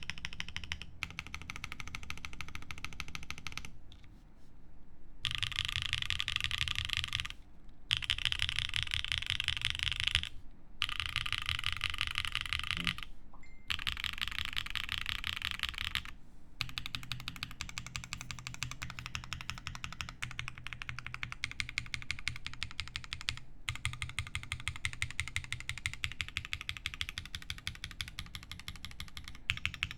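Fast typing on a plateless Nascent custom mechanical keyboard with lubed SOTC switches and GMK ABS keycaps: a dense, rapid stream of keystrokes in runs of a few seconds, broken by brief pauses.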